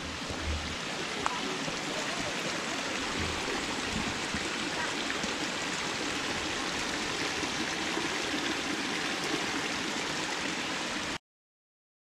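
Steady rush of a mountain stream, with a few low thumps in the first second; the sound cuts off suddenly near the end.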